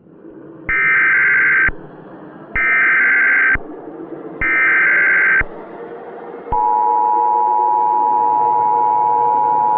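Emergency Alert System SAME header: three one-second bursts of warbling data tones about a second apart, with a faint hiss between them. About six and a half seconds in, the steady two-tone EAS attention signal starts and holds.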